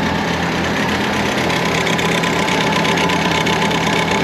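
Jetter truck engine running steadily, a constant low hum with an even pulsing beat underneath.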